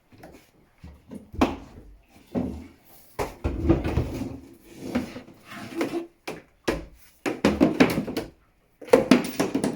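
Irregular knocks, bumps and clatter of things being picked up and handled, with hollow wooden knocks.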